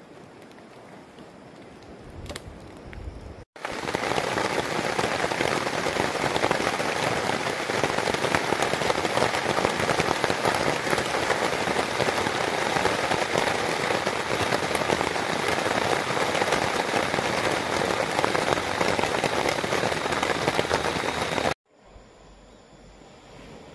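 Heavy rain falling steadily on a tarp fly sheet overhead. It starts suddenly a few seconds in and stops suddenly near the end.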